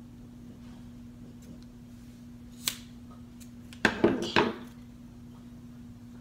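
A small hard-plastic toy and its packaging being handled: one sharp click, then about a second of clattering and knocking just past the middle, over a steady low hum.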